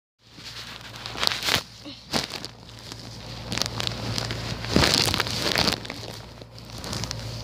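Irregular rustling and crackling noises, with louder bursts around a second and a half in and again near five seconds, over a low steady hum.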